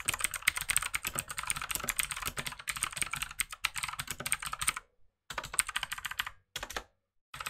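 Fast typing on a computer keyboard: a rapid, dense run of key clicks that breaks off about five seconds in, then two shorter flurries of keystrokes.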